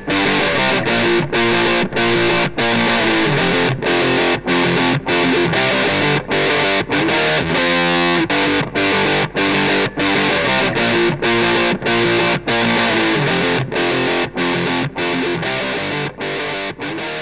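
Distorted electric guitar playing a fast punk riff, layered with a loop pedal and run through a multi-effects unit, broken by short stops every second or so. It fades out over the last few seconds.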